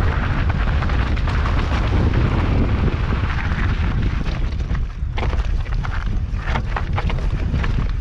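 Mountain bike ridden fast down a loose, rocky trail: a constant heavy rumble of wind buffeting the camera's microphone, with tyres crunching over stones and the bike rattling over rocks, the clatters busiest about five to seven seconds in.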